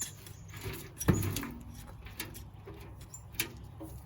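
A potato-growing bucket being tipped out and its soil handled: a dull thud about a second in, then scattered knocks and scraping.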